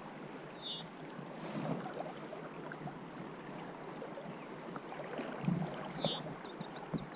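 Steady rush of river water, with a bird giving a falling call about half a second in and again about six seconds in, and short high chirps near the end.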